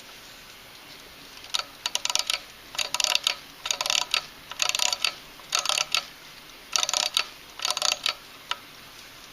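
Vintage mechanical wind-up alarm clock being wound: the key's ratchet clicking in short, irregular bursts of several sharp metallic clicks, about nine bursts over some seven seconds, starting about a second and a half in.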